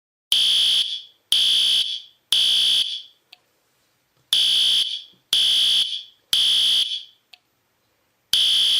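Fire alarm sounding high-pitched beeps in groups of three, about one beep a second, with a longer pause between groups: the temporal-three evacuation signal. Two full groups sound, each followed by a faint click, and a third group begins near the end.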